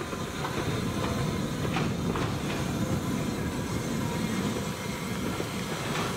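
1945 Franco-Belge 040 narrow-gauge steam tank locomotive running past at close range: a steady rumble of wheels and running gear that grows louder over the first second. A few metallic clanks come about two seconds in.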